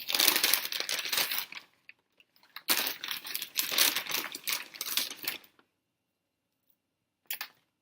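Paper fast-food fry bags and containers rustling and crinkling as fries are handled, in two stretches of dense crackling, the second about three seconds long, with a short rustle near the end.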